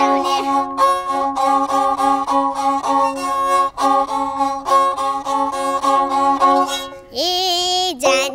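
Nepali sarangi, a small bowed folk fiddle, played with quick short bow strokes over a steady ringing drone. Near the end the bowing stops and a child's voice sings one long wavering note.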